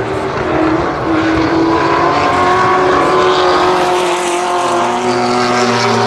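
Jaguar E-type race car's straight-six engine under power as the car passes, its note climbing a little over the first few seconds and then holding steady.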